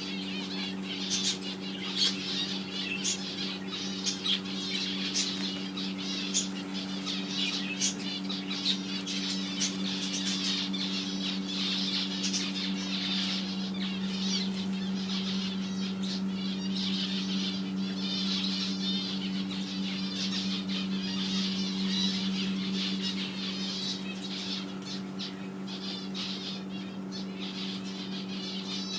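A flock of caged birds chirping and squawking continuously, with scattered sharp calls, over a steady low hum.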